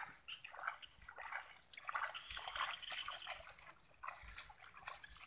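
Wading through shallow water in a flooded rice paddy: irregular sloshing and splashing steps among the rice plants.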